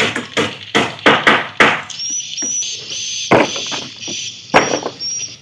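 Hammer blows on timber formwork, a quick run of knocks about three a second, then two more single knocks. From about two seconds in, a short high chirp repeats about twice a second.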